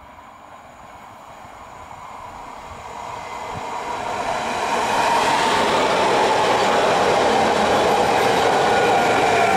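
Koleje Małopolskie EN77 electric multiple unit approaching and passing close by, its wheels running on the rails with a steadily growing rumble that becomes loud and steady about five seconds in. A motor whine sits over the rail noise and drops in pitch near the end as the train goes by.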